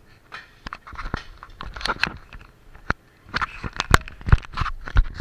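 Handling noise: irregular clicks, knocks and rustling as the action camera rubs and bumps against things up close, with the sharpest knocks about four seconds in.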